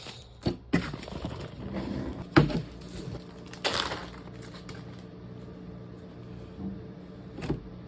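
Food packaging being handled: a few scattered clicks and knocks and one short rustle over a steady low hum.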